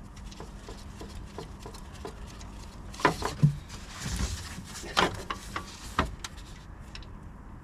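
Small metal bolts clicking and knocking as they are handled and fitted back into their holes by hand, with light taps at first and several sharper knocks between about three and six seconds in.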